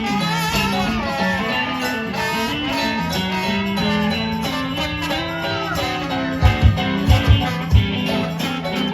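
Live band playing an instrumental passage: a country-blues guitar line with bending notes over a steady bass note. About two-thirds of the way in come several heavy low thumps in quick succession.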